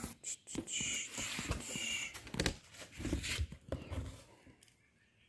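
Handling noise: a string of clicks, knocks and rustles as objects are picked up and moved, with two brief high-pitched sounds about a second apart, dying away about four seconds in.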